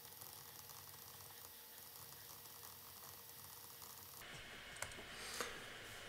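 Faint ticking and scratching of a stylus writing on a tablet, with two sharper taps near the end.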